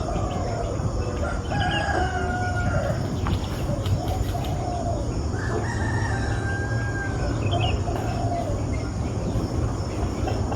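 Rooster crowing, two long drawn-out crows about two seconds in and again about six seconds in, over a steady low background hum.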